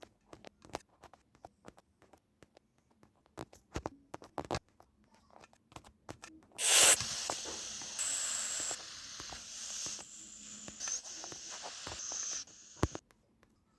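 Light scattered clicks, then a hiss that starts with a loud burst, runs about six seconds with a few sudden steps in level and pitch, and cuts off abruptly.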